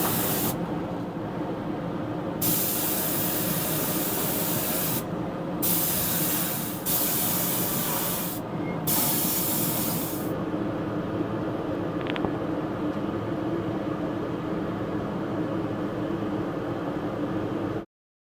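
Paint or varnish spraying with a loud hiss in several bursts separated by short pauses, stopping about ten seconds in. A steady low hum continues underneath until it cuts off near the end.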